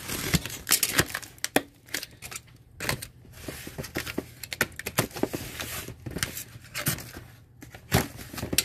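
Snap-off utility knife slitting packing tape on a cardboard box, with the tape tearing and the cardboard flaps scraping and crinkling as they are pulled open; irregular scratches and clicks throughout.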